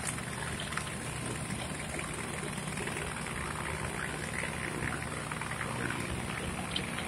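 Machinery of a small sugarcane crushing mill running: a steady low hum with a crackling rattle over it and scattered small clicks.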